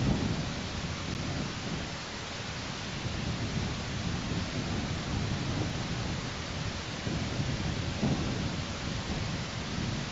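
Wind gusting on an outdoor nest-camera microphone: a steady hiss with low rumbling surges that swell and fade every few seconds.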